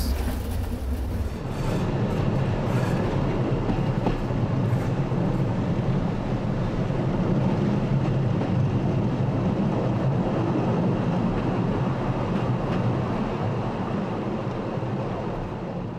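Mariazellerbahn class 1099 electric locomotive hauling a narrow-gauge train: a steady running rumble of wheels on rail. It is heard first inside the locomotive's cab, with a deep hum, then from beside the line after about a second and a half. The sound eases slightly near the end.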